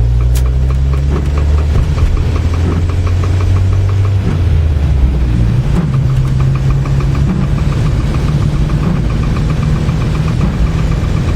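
Engine idling with a steady low hum and a light, regular knock of about four to five ticks a second. The idle speed shifts slightly a few times.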